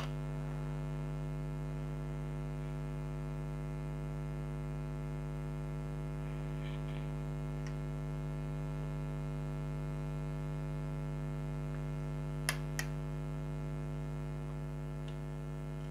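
Steady electrical hum, buzzy with a long stack of even overtones, with two short clicks in quick succession about twelve and a half seconds in.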